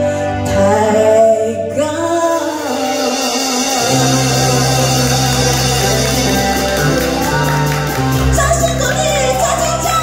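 A woman sings a Mandarin pop ballad into a microphone over keyboard accompaniment. A low, steady bass note comes in about four seconds in.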